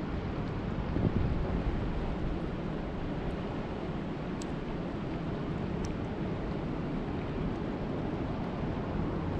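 Steady rush of lake water mixed with wind buffeting the microphone, swelling briefly about a second in, with two faint ticks near the middle.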